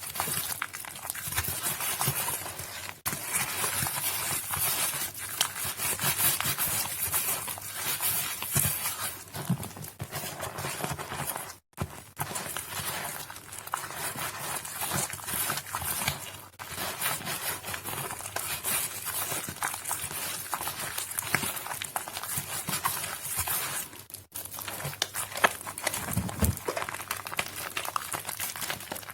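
Soaked Nuvo bar soap being squished and crushed: a dense run of wet crackles, broken by short gaps at about three, twelve and twenty-four seconds in.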